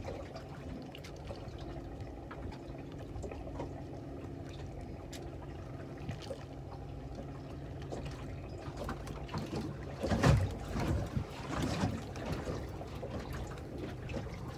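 Water sloshing and lapping against the hull of a small boat at sea, over a steady low engine hum; a few louder splashes come about ten to twelve seconds in.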